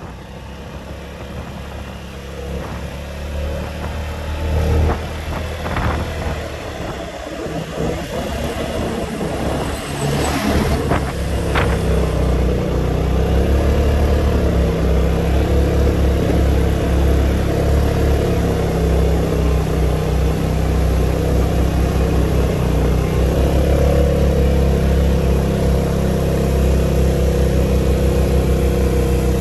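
Motorbike engine running under way on a road: a steady low engine hum that grows louder over the first dozen seconds and then holds. A few sharp clicks come about ten to twelve seconds in.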